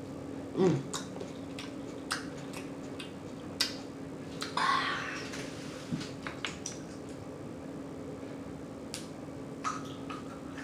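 Close-up mouth sounds of eating: scattered wet smacks and chewing clicks, with a short low vocal sound about half a second in and a longer hissing sound around the middle. A faint steady hum sits underneath.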